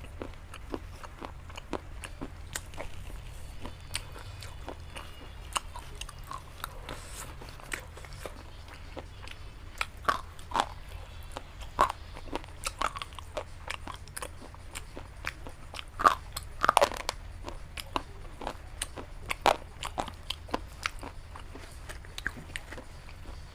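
Montex slate pencils being bitten and crunched between the teeth: a long run of sharp, crisp cracks at an uneven pace, with the loudest snaps about ten and sixteen seconds in.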